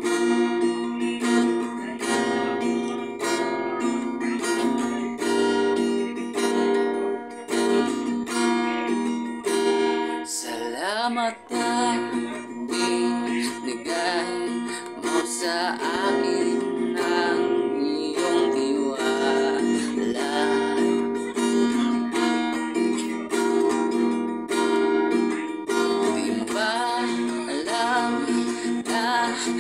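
Acoustic guitar strummed steadily in a run of chords, with a man's voice singing along at times.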